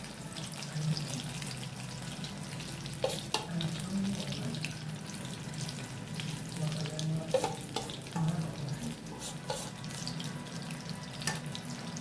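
Sweet corn pakoras deep-frying in hot oil, a steady sizzle, with a few sharp clicks scattered through it.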